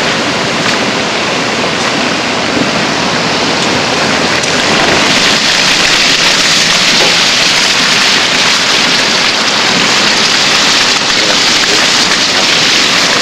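Hurricane-force wind with driving rain: a loud, steady rushing noise that grows somewhat louder about five seconds in.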